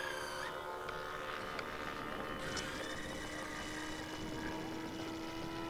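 Supercharged YS 91 FZ glow engine of a scale RC P-51 Mustang running at high throttle in flight. It makes a steady, even engine drone just after a close pass.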